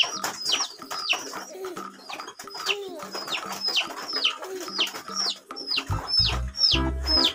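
Ducklings and chicks peeping: a quick run of high, downward-sliding peeps, about three a second. Music with a low bass comes in near the end.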